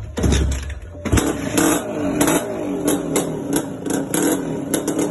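Motorcycle kick-started cold without the choke: a low thump, then the engine catches about a second in and keeps running unevenly, with sharp pops a few times a second.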